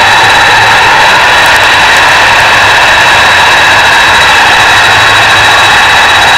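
Boeing 747-400's four jet engines running while the airliner moves slowly on the ground: a loud, steady rush with a thin high whine held over it.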